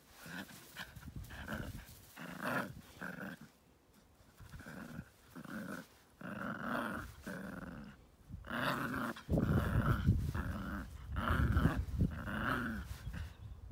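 Terrier puppy play-growling in short repeated bouts while tugging on a grass stem, the growls getting louder in the second half.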